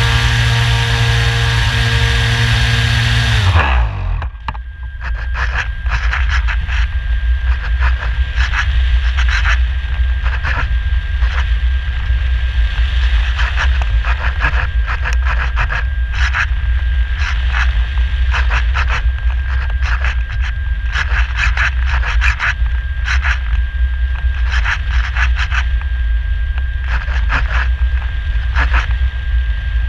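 Radian Pro motor glider's brushless electric motor and propeller running with a steady whine, then cut about four seconds in, the pitch falling as it winds down. After that, wind rushing over the airframe and camera as the glider glides, with irregular crackles.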